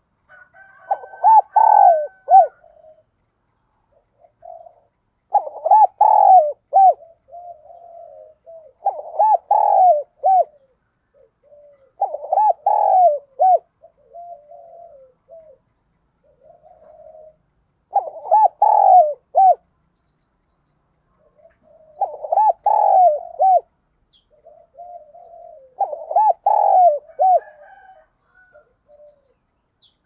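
Spotted dove cooing: seven loud phrases of quick, rounded coo notes, roughly every three to four seconds with one longer pause midway, and softer low coos between the phrases.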